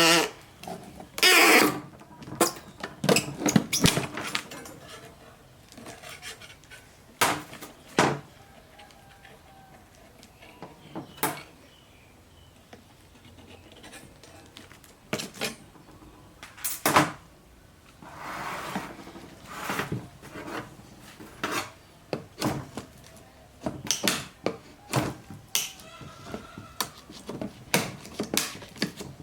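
Irregular metallic clinks and knocks of a steel lathe chuck and its parts being handled and set down, with a short rustle of packaging about eighteen seconds in.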